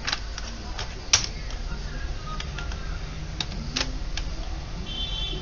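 Computer keyboard keys being pressed a few times at irregular intervals, with one sharper click just over a second in. A short high beep sounds near the end.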